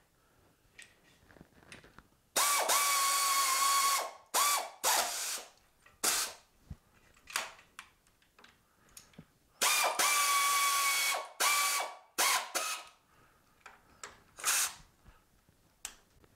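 Pneumatic air ratchet driving the jaw bolts of a mill vise, run in bursts: two longer runs of about a second and a half with a steady whine, and several short blips between them.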